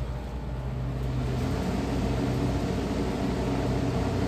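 Newly replaced condenser fan motor on a Bard wall-mount air conditioner running, its rushing air growing over the first second or two and then steady, over a steady low hum. The fan is spinning the right way, blowing air out through the condenser coil.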